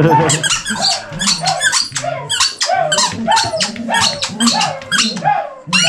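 Dog's squeaky toy squeaked over and over as the dog chews it, short rising-and-falling squeaks about two or three a second, loud.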